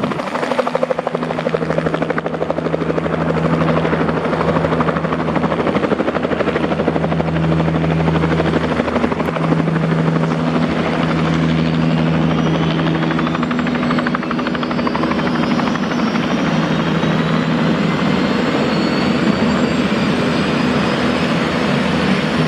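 Turbine helicopter running close by with a steady, loud engine and rotor noise. About halfway through, a high turbine whine rises steadily in pitch.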